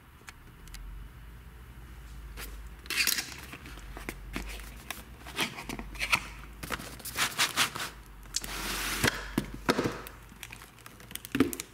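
Cardboard retail box being opened by hand: the end flap is pulled open and the inner tray slid out, with scattered taps and scrapes of cardboard and crinkling of packaging. A longer rustle comes about nine seconds in.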